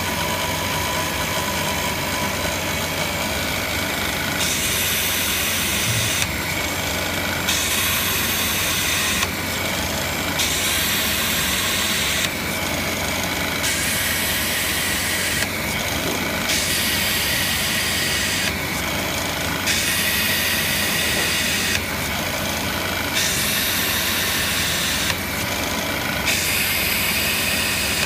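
Drill press motor running steadily, with repeated bursts of gritty hiss as a wet 6 mm sintered diamond drill bit grinds through 8 mm glass. A new hole is drilled roughly every three seconds.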